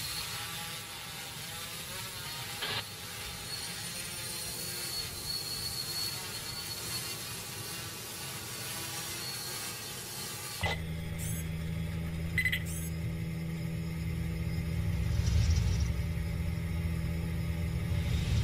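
A steady hiss with a thin high tone, then, about ten seconds in, the motors and propellers of a multirotor camera drone (an octocopter) hum in abruptly with a low steady drone that grows louder toward the end.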